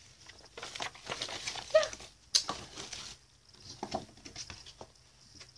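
Paper coupon sheets being handled: irregular light rustles and taps.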